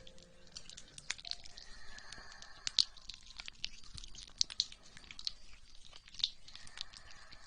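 Wet, sticky, squishy crackles and clicks close to the microphone, coming irregularly, as in ASMR gel or water sounds, with soft breathing in between.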